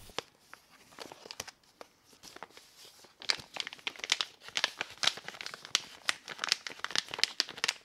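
Clear plastic Ziploc bag crinkling as it is handled and turned over in the hands. The crackles are sparse at first and come thicker from about three seconds in.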